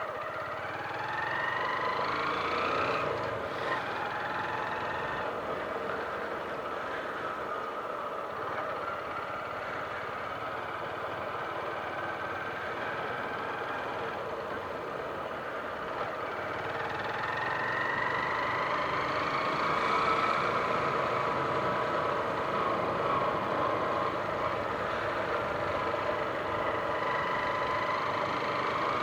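150 cc motorcycle engine running while riding, its pitch rising as it accelerates over the first few seconds and again a little past the halfway point.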